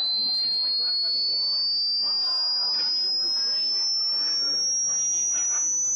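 Hearing-test tone: a single high, pure sine tone climbing slowly and steadily in pitch, a sweep that goes up until the listener can no longer hear it.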